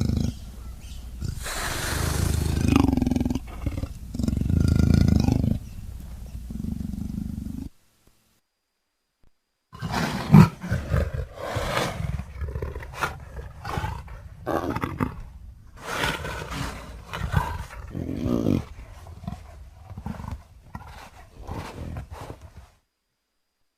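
Leopard calling: a few long, loud calls, a brief silence about eight seconds in, then a long series of short grunts repeated about every half second.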